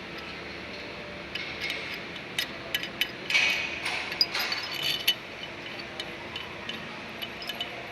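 Metal hand tools and bolts clinking and scraping against engine parts in irregular taps. A longer scrape comes about three and a half seconds in.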